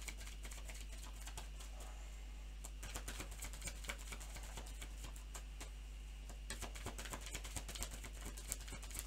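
A deck of oracle cards being shuffled by hand: quick, irregular clicking and pattering as the cards slide and tap against each other, heavier about three seconds in and again through the last few seconds.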